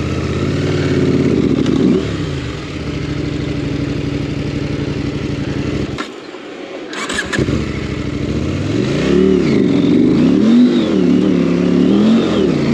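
Motorcycle engine labouring up a loose dirt hill, its clutch being slipped hard. The engine note drops out for about a second some six seconds in, with a short clatter, then comes back and revs up and down repeatedly.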